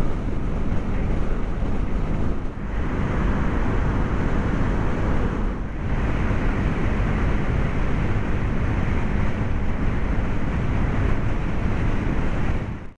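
Wind rushing over the microphone of a motorcycle riding at road speed, masking the engine, with two brief dips. It cuts off abruptly at the end.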